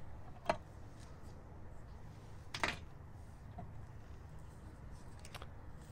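A few faint knocks and clicks of a wire antenna and its plastic winder being lifted and handled over a glass table, the loudest about two and a half seconds in, over a low steady background.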